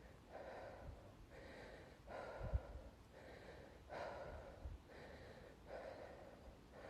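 A frightened woman breathing heavily close to the microphone: faint, quick hissy breaths in and out, about one each second.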